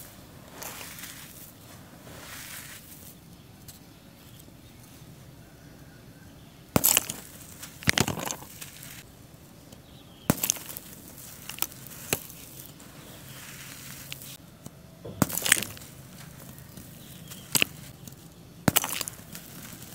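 Hands rustling through loose charcoal powder, then about eight sharp, crispy crunches and cracks as pressed charcoal balls break and crumble.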